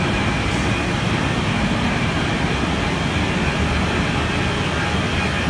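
Overhead bridge crane travelling along its runway: a steady low mechanical drone.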